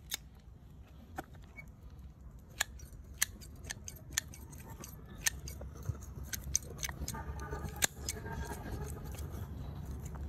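Hand pruning shears snipping through the roots of a yellow apricot (mai vàng) tree's root ball: about a dozen sharp snips at irregular intervals, over a low rumble that grows louder in the second half.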